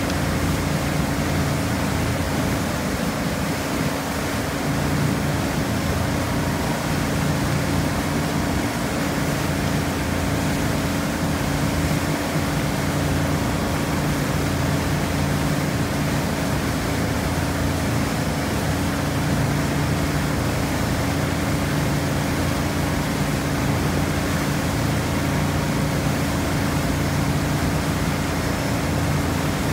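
Motorboat engine running steadily at a constant pitch, under a broad rush of water and wind noise.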